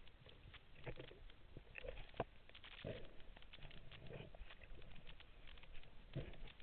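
Underwater reef ambience: a steady crackle of many small sharp clicks, typical of snapping shrimp, with a few short low gurgles.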